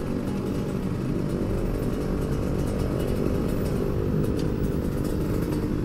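Two-stroke engine of a Kawasaki Ninja RR 150 running steadily as the bike rolls slowly through traffic, with surrounding traffic noise.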